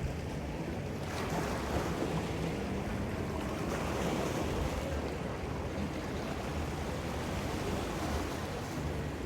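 Ocean surf washing steadily, swelling about a second in and again around four seconds in.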